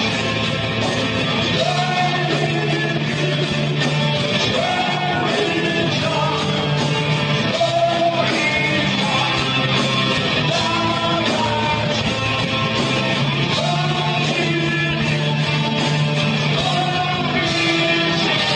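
Live rock band playing: a singer belting long held notes over guitar, bass and drums.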